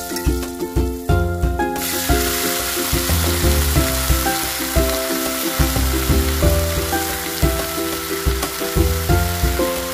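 Loud sizzling of fresh fiddlehead ferns and beans hitting hot oil in a cast-iron wok. The sizzle starts about two seconds in and dies away just before the end, over background music with a steady beat.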